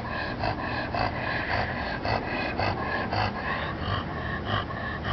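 A large Newfoundland–Labrador mix dog breathing in quick, regular breaths, about three a second.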